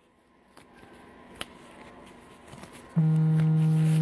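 A loud, steady, low buzzing tone starts abruptly about three seconds in and holds one pitch. Before it there are only a few faint clicks of handling.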